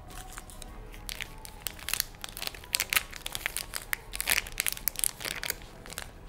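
Plastic wrapper of a chocolate snack bar crinkling and tearing as it is pulled open by hand: an irregular run of sharp crackles.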